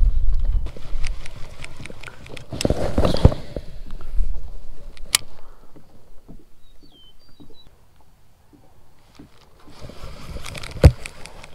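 Water sloshing and lapping against a fishing kayak's hull, with scattered sharp clicks and knocks from handling a baitcasting rod and reel; it goes quieter for a few seconds past the middle, then busier again near the end.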